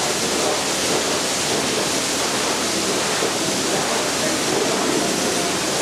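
Pressure washer spraying water: a loud, steady, unbroken hiss.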